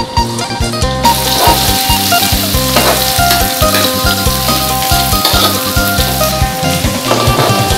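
Pounded garlic sizzling as it fries in hot oil in a steel wok, the sizzle starting about a second in, while a metal ladle stirs it.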